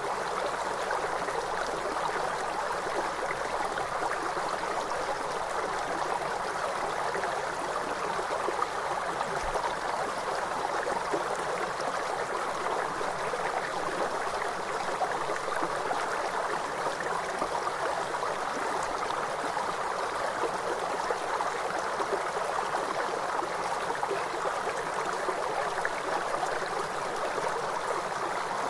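Flowing river water, a steady rush with no pauses or changes.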